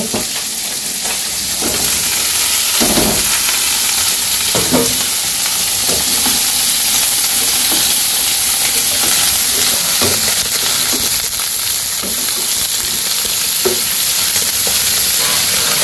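Sliced bitter gourd sizzling in hot oil in a metal karahi, stirred with a metal spatula that now and then knocks and scrapes against the pan. The sizzle grows a little louder a couple of seconds in.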